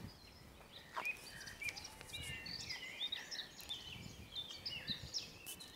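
Songbirds singing in woodland: a busy mix of short chirps and quick warbling phrases from several birds. A few sharp knocks from a hand handling the phone cut in, one about a second in and a couple near the end.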